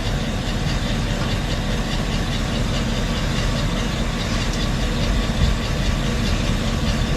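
Steady low mechanical rumble like an idling engine, running without change.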